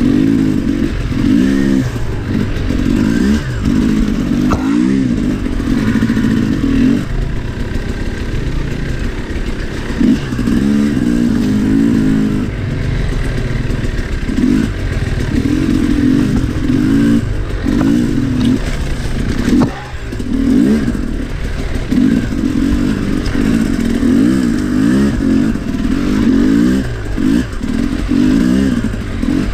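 2022 Sherco 300 SE Factory two-stroke enduro bike engine being ridden, revving up and falling back over and over, with clatter from the bike over rough ground. The engine drops off briefly about twenty seconds in.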